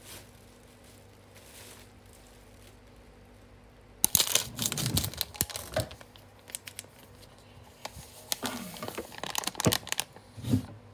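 Plastic drink-mix sachet crinkling and being torn open. The sharp crackles start about four seconds in and come in bursts until near the end.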